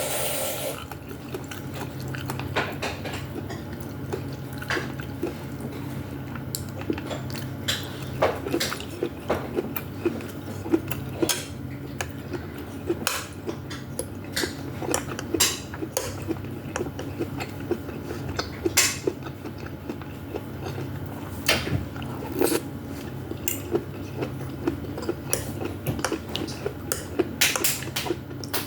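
Close-miked eating of vegetable soup with meatballs: a spoon clinks and clicks against the bowl at irregular intervals, with chewing in between, over a steady low hum.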